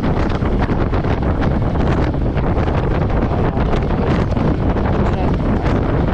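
Steady wind rushing and buffeting over the microphone of a riding motorcycle, with the Royal Enfield Meteor 350's single-cylinder engine running underneath.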